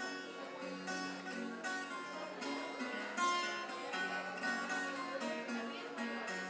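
Acoustic guitar played alone in an instrumental passage: a run of plucked notes over a low bass note that keeps returning.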